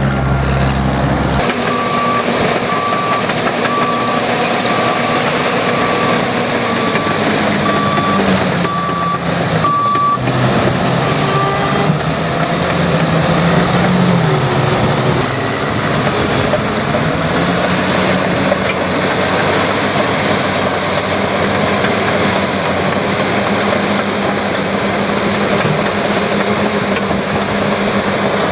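Heavy construction equipment working: a diesel engine runs, its pitch rising and falling as it is worked. A reversing alarm beeps steadily, about three beeps every two seconds, from a couple of seconds in until about ten seconds in.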